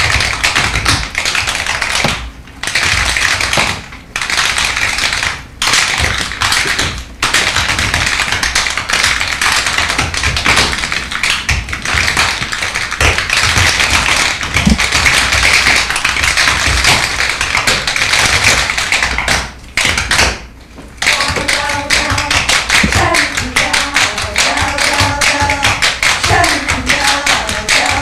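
Tap dancers' shoes striking a wooden stage floor in fast, dense rhythms, broken by a few short pauses. From about 22 seconds in, music with held melodic notes plays along with the taps.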